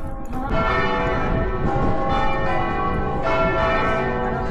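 Church bells ringing: repeated strokes every second or so, each one's tones ringing on and overlapping the next.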